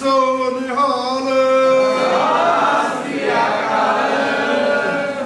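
Punjabi song with a singer holding long, sustained notes over the accompaniment. It begins to fade out near the end.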